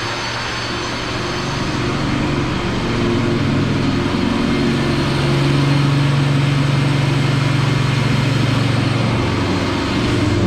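Concrete floor grinder running: a steady motor hum under a broad grinding hiss, getting louder a few seconds in.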